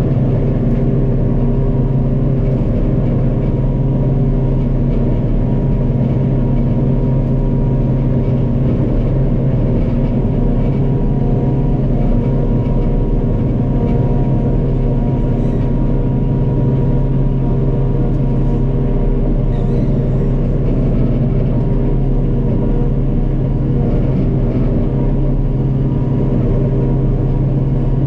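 Steady drone of a large diesel farm machine's engine running at constant speed.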